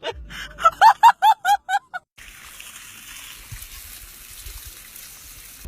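An animal calling in a quick series of short pitched calls, about eight in two seconds. The calls stop abruptly and give way to a steady hiss.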